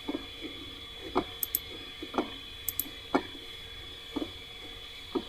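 Faint computer mouse clicks over a low steady hum: two quick double clicks, with soft taps about once a second between them.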